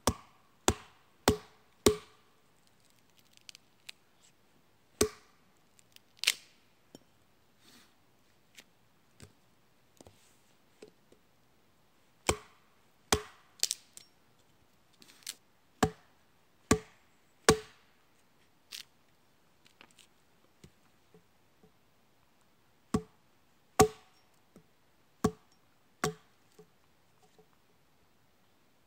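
A hatchet chopping wood on the ground: sharp, woody strikes in irregular runs of two to four blows, with pauses of a few seconds between the runs.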